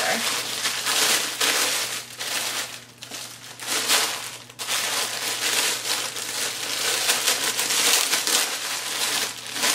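Clear plastic garment bags crinkling loudly as hands handle and open them, with a couple of brief lulls.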